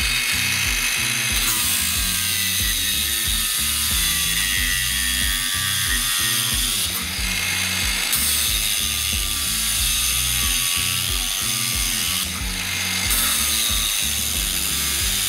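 DEKO DKAG20-125 cordless angle grinder's cut-off disc grinding through a zinc-plated steel M10 bolt, a steady high-pitched grinding noise that dips briefly twice.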